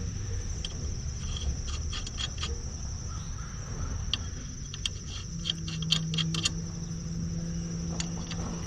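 Light metallic clicks and clinks of lug nuts being threaded back onto the wheel studs by hand, over a steady high insect chirring. About five seconds in, a low steady hum joins.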